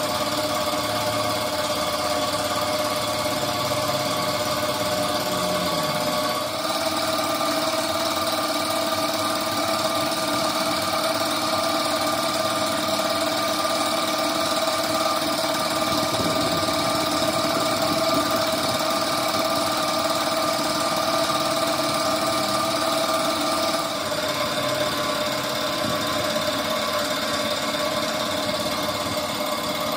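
A motor-driven machine running steadily with a fixed, even hum. Its sound shifts abruptly about six seconds in and again about twenty-four seconds in.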